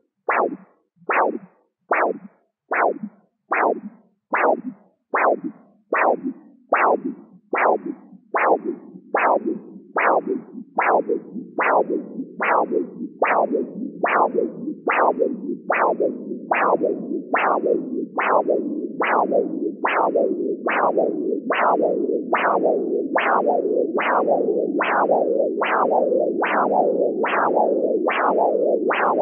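Doppler ultrasound probe's audio of an arm artery's pulse as the blood-pressure cuff deflates: a beat a little more than once a second, each a sharp sweep falling in pitch. A few seconds in, a steady flow hiss starts to fill the gaps between beats and grows louder, the pulse tone change that marks the diastolic pressure.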